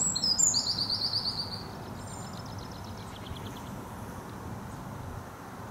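A small bird singing: a quick run of high, rapidly repeated notes in the first second and a half, then a few fainter notes, over a steady low background noise.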